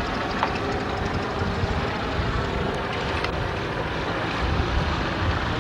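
Propeller engine of a Citabria light taildragger running steadily at low power as the plane taxis in after landing.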